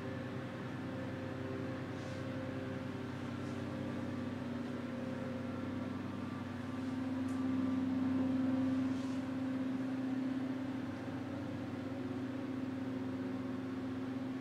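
A steady mechanical hum made of several sustained tones, swelling a little about halfway through, with a few faint clicks.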